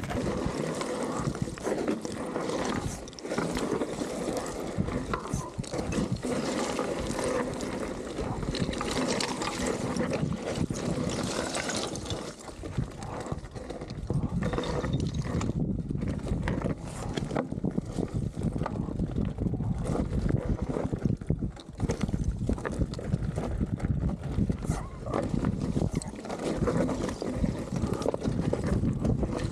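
Mountain bike tyres crunching and sliding over loose shale scree, with loose stones clattering and rattling under the wheels.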